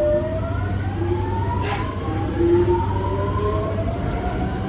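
Metro train traction motors whining as the train accelerates: several tones climbing in pitch in steps, over a steady low rumble.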